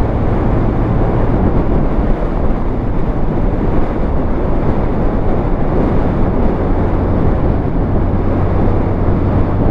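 Motorcycle engine running steadily while riding, mixed with wind rushing over the microphone.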